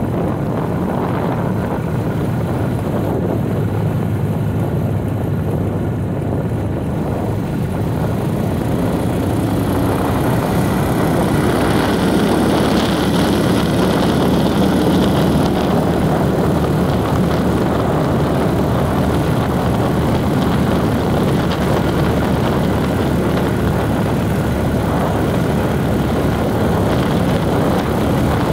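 A vehicle's engine runs steadily under road noise while driving, getting a little louder about a third of the way in.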